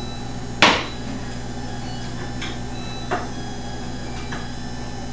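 A stainless steel cooking pot set down with a sharp clank on a glass-top electric stove about half a second in, followed by a few light clicks and knocks, over a steady low hum.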